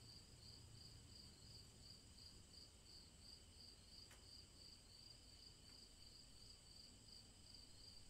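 Crickets chirping faintly: a high trill that pulses evenly a few times a second.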